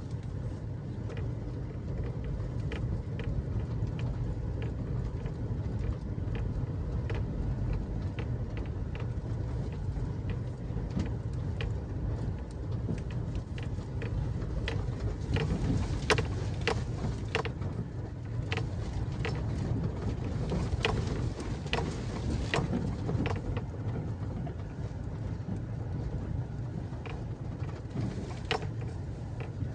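Ford F-350 pickup driving slowly over a gravel dirt track, heard from inside the cab: a steady low rumble of engine and tyres, with stones crackling and ticking under the wheels, thickest around the middle.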